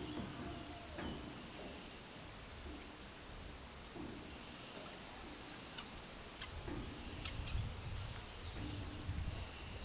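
Riverside ambience: scattered short bird chirps over a low wind rumble on the microphone that grows stronger in the second half.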